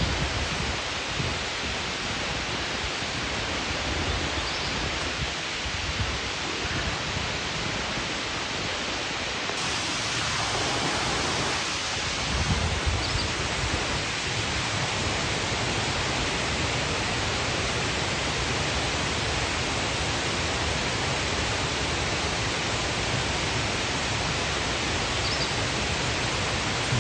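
Steady rushing of a mountain stream: an even, unbroken hiss of flowing water.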